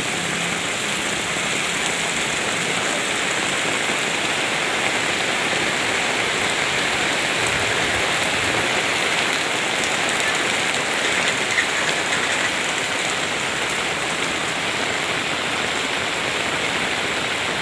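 Steady rain falling, an even hiss with no break. A low engine hum stops just after the start.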